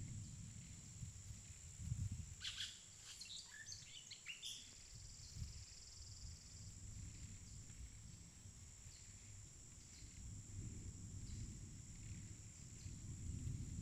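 Forest ambience: a steady, high-pitched insect drone, with a short burst of bird chirps a couple of seconds in and a few fainter chirps later, over a low rumble.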